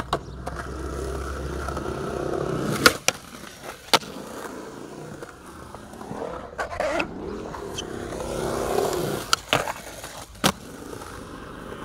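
Skateboard wheels rolling on a concrete skatepark, a steady rumble that swells and fades, broken by several sharp board clacks and a grind along a concrete ledge.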